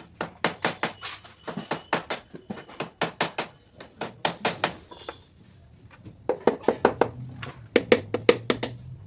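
A hammer striking wood in quick runs of several blows, about five a second, with a pause of over a second near the middle before the blows resume.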